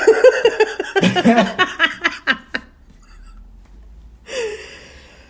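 Two people laughing and talking over each other for about two and a half seconds, then a pause and a short vocal sound near the end.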